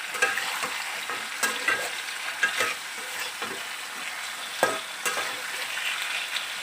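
Chicken pieces sizzling in sauce in a frying pan while a spatula stirs them, knocking and scraping against the pan every second or so.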